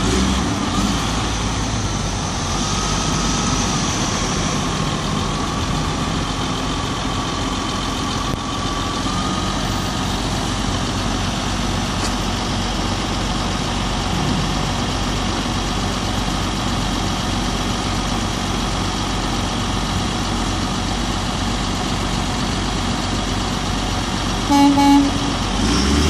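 Heavy diesel engines of a semi truck and a wheel loader running steadily while the trailer is stuck on a railroad crossing, with a short horn toot near the end.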